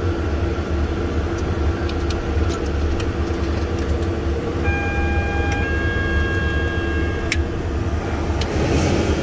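Cockpit of a Cessna CitationJet CJ3 with its Williams FJ44-3A turbofan engines running: a steady low rumble under a held hum. A few steady higher tones sound together for about two and a half seconds in the middle, with light clicks scattered through.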